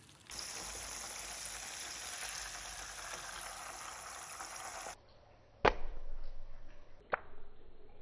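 Breaded chicken fillet frying in a pan of hot oil: a steady sizzle that cuts off about five seconds in. Then two sharp knocks, about a second and a half apart.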